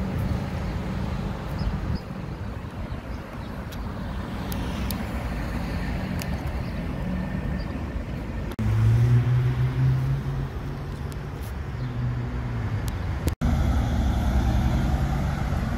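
Car engines in city traffic, across several short clips. A sports car's engine runs at low revs, then about halfway through a louder engine note comes in suddenly, the loudest part. After a brief dropout near the end, a Mercedes G-Class SUV's engine pulls away.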